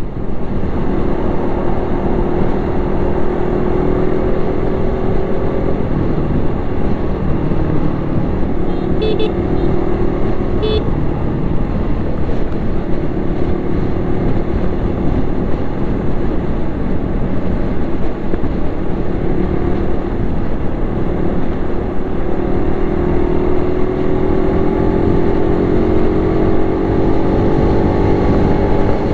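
Very loud wind noise buffeting a helmet-mounted microphone at riding speed, over a motorcycle engine running steadily; the engine's pitch climbs slowly near the end as the bike accelerates. Two short high beeps come about nine and eleven seconds in.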